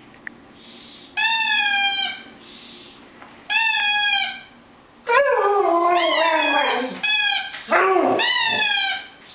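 Husky "talking": a series of drawn-out, whining howls, the first two short and even, then longer calls from about halfway through, one sliding down in pitch.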